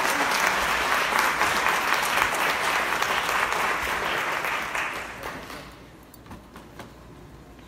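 Audience applauding, the clapping dying away about five seconds in and leaving only a few scattered claps.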